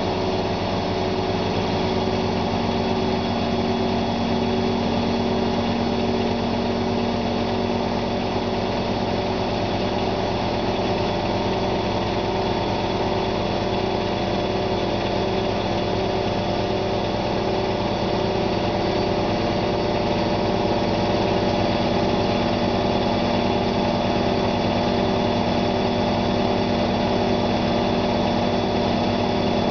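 Zanussi ZWF 1621 W washing machine running a fast spin: its motor and drum give a steady mechanical hum with several held tones.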